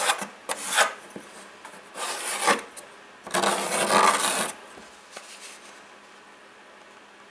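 Pencil scratching on plywood as it is run around the inside of a plywood ring to trace a circle, in four scratchy strokes, the last and longest lasting about a second.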